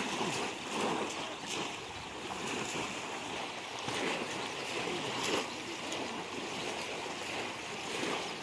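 Water splashing and sloshing as many people wade through a shallow river working hand nets, with a continuous wash of small splashes and one louder splash about five seconds in.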